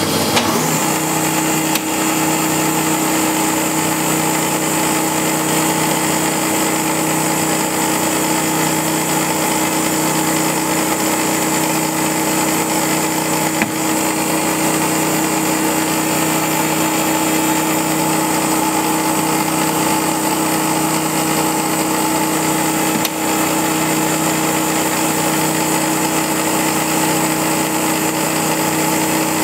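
Metal lathe running at a steady speed while turning a small brass fitting, its motor and drive giving a constant hum with a few steady higher tones.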